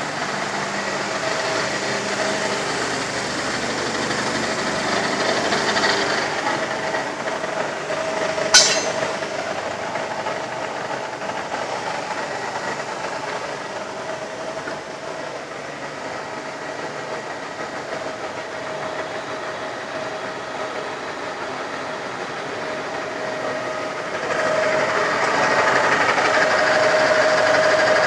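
Skoda SD160 heavy-duty lathe running: a steady whine over machine noise, with one sharp clank about eight seconds in. It gets louder near the end.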